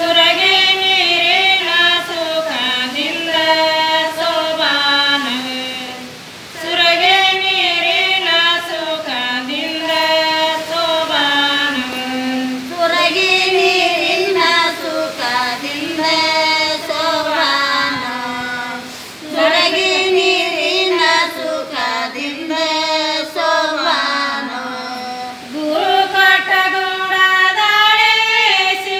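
A group of women singing a Kannada sobane folk song together in unison, unaccompanied, in long phrases with short breaks between them.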